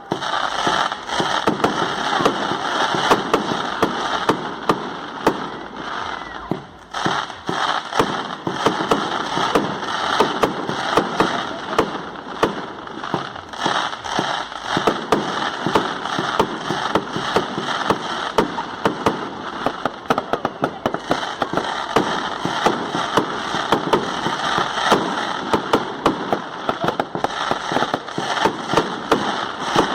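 Fireworks of a castillo firework tower burning: dense, continuous crackling with many sharp pops every second over a steady hiss, thinning briefly about seven seconds in.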